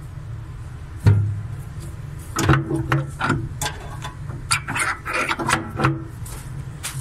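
Hand handling of a crane steering valve's solenoid coil as it is taken off its stem for inspection: a thump about a second in, then a run of short clicks and scrapes of plastic and metal. A steady low hum runs underneath.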